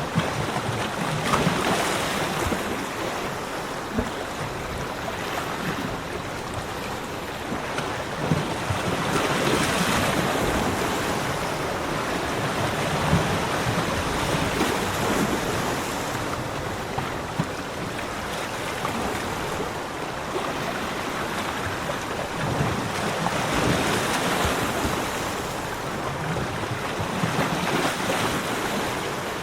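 Sea waves breaking and washing up a beach: a continuous rush of surf that swells and ebbs every several seconds.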